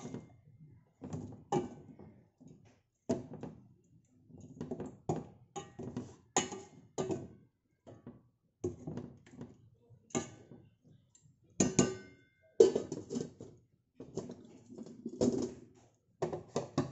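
Irregular clinks, taps and scrapes of a metal spoon against a stainless steel wok as cooked tilapia in coconut milk is stirred and spooned. About twelve seconds in comes a louder metal clank with a short ring.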